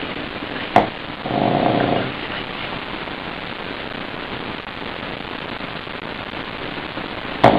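Sleeping pug snoring: a sharp click about a second in, then one short snore lasting under a second, with another sharp click near the end. A steady hiss runs underneath.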